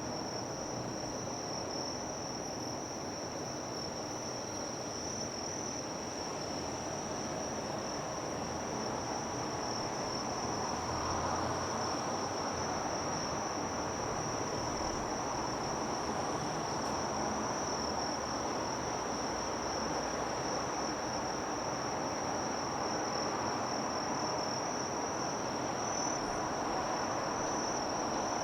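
Insects chirring in one steady, unbroken high-pitched tone, over a low rushing haze of harbour noise that swells slightly about ten seconds in.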